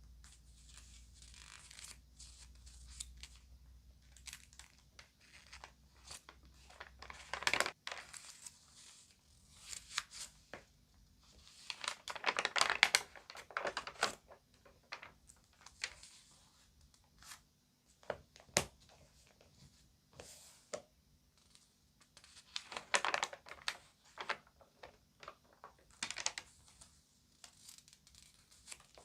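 Glossy magazine pages being handled and turned, crinkling and rustling in uneven spells with small sharp crackles between them; the loudest spell of crinkling comes a little under halfway through.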